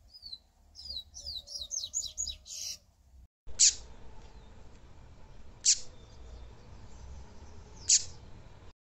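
Yellow-bellied seedeater (papa-capim) singing: a fast run of high, falling notes, then three sharp high notes that each drop steeply in pitch, about two seconds apart.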